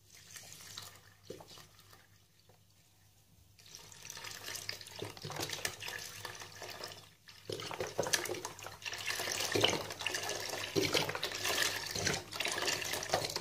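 Full-cream milk pouring from a carton into a wide pan of grated carrots and raw rice, a continuous splashing stream. It starts faint, grows louder from about four seconds in, and louder still after a brief pause a little past halfway.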